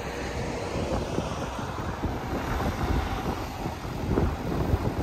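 Wind buffeting the microphone, in uneven gusts, over the steady low running of a JCB 3DX backhoe loader's diesel engine.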